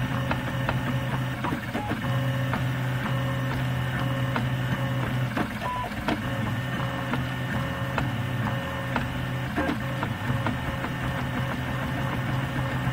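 Stepper motors of a RepRap Mendelmax 3D printer running as the print head traces small circles while printing. A steady low motor whine breaks off briefly about three times as the moves change, with faint ticks throughout.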